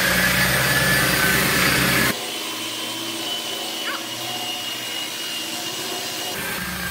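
Titan 900 W belt sander running with its abrasive belt pressed on a laminate-covered table top: a steady motor whine over the rasp of the belt. It is louder for the first two seconds, then drops suddenly to a quieter, steady level.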